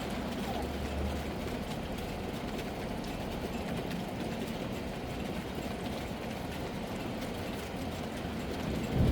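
Steady heavy rain with a deep low rumble underneath and faint pattering ticks; a brief louder low thump comes near the end.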